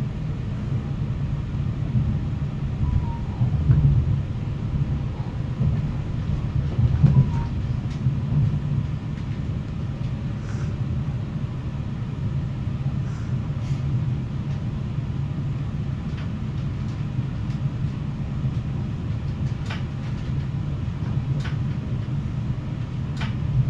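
CFL regional express train running, heard from inside the carriage: a steady low rumble of wheels on the rails, a little louder a few seconds in, with a few faint clicks later on.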